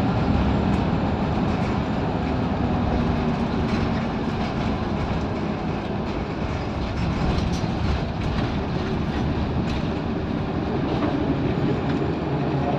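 Interior of a Scania L94UB single-decker bus under way: its nine-litre five-cylinder diesel engine running steadily beneath road noise, with light rattles from the bodywork and fittings. The engine note is strongest in the first few seconds.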